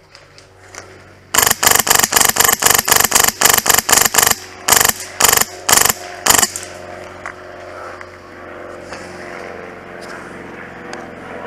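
Polarstar Fusion Engine high-pressure-air airsoft M4 firing: a fast string of about sixteen sharp shots in three seconds, then four single shots about half a second apart.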